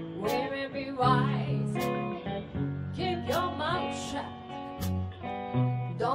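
Live blues-rock band playing: electric guitar, bass and drums with cymbal hits, and a woman singing into a microphone, heard through the stage PA.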